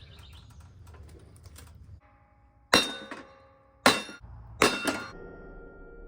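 Three hard metal-on-metal strikes about a second apart, each leaving a ringing tone: a hammer beating on a small lawnmower engine's casing. Light clicks and taps come before the strikes.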